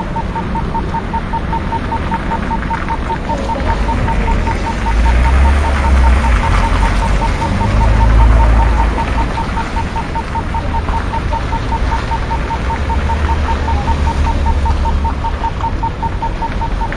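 Level crossing warning bell ringing steadily, about five strokes a second, over a low rumble that swells around the middle.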